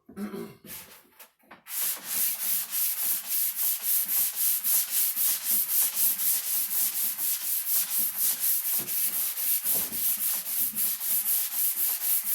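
Sandpaper rasping back and forth over cedar wood in quick even strokes, about four a second, starting about two seconds in: fine 150-grit finish sanding of a cedar chest.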